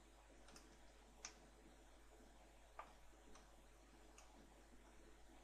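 Near silence with a handful of faint, scattered clicks from a computer keyboard and mouse.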